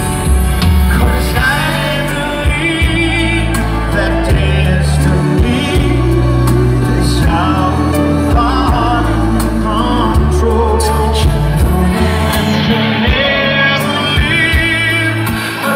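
Male pop vocal group singing a ballad live over backing music through a concert PA, with a strong steady bass, heard from within the audience.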